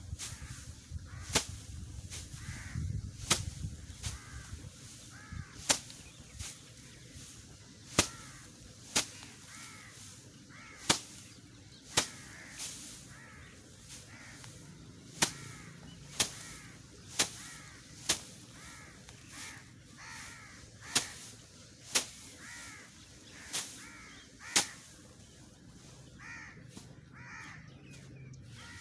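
Rice stalks being cut by hand with a sickle, a sharp crisp snap every second or two. Crows caw repeatedly in the background.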